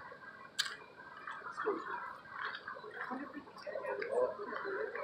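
Crowd of onlookers murmuring and talking over one another, no single voice standing out, with one sharp click about half a second in.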